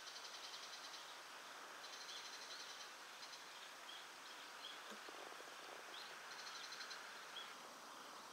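Faint outdoor ambience: insects trilling in short bursts of rapid high pulses, a few short bird chirps in between, over a soft steady hiss.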